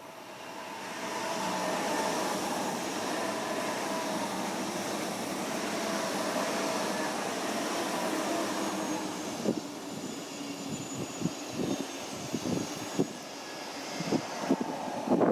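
A train passing: a steady rush that swells up over the first two seconds with slowly falling tones, then from about ten seconds in a run of sharp clacks, thickest near the end, as wheels cross rail joints and switches.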